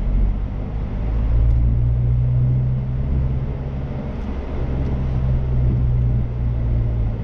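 Car driving, heard from inside the cabin: a steady low rumble of engine and road noise that dips briefly about four seconds in.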